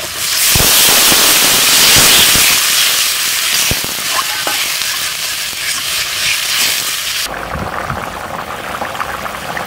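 Water poured into a hot kadai of fried potatoes in mustard oil, hissing and spitting loudly as it hits the hot oil. A ladle stirs and knocks against the pan a few times. About seven seconds in, the loud hiss suddenly drops to a quieter bubbling simmer.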